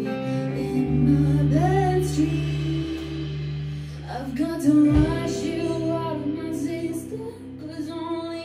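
A live rock band playing: a woman sings over electric guitars, electric bass and a drum kit.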